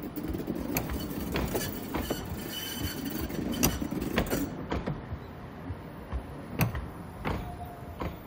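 Hyundai Rotem hydrogen electric tram rolling past at low speed with a low rumble. Its wheels knock sharply and irregularly over the track at the level crossing, about ten clacks in all.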